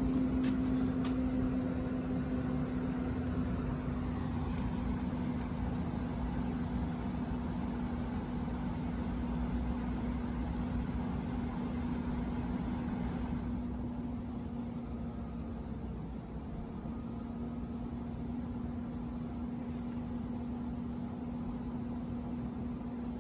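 A fan or blower running with a steady hum over an even rush of air. The hiss in the rush drops noticeably about halfway through while the hum carries on.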